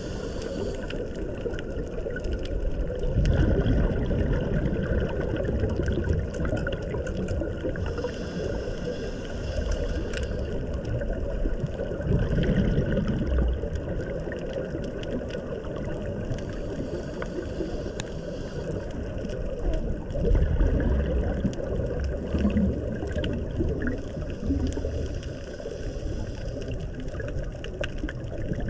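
Water sloshing and gurgling over a steady low rumble, with three louder surges.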